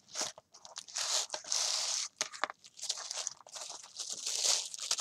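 Paper rustling and crinkling in uneven bursts as it is handled and unfolded, loudest about a second in.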